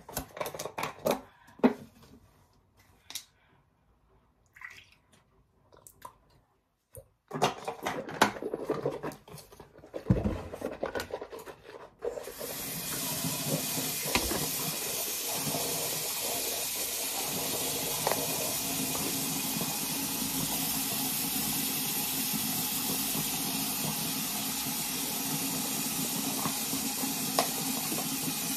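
Scattered handling clicks and knocks for about twelve seconds, then water starts running steadily from a tap and keeps running.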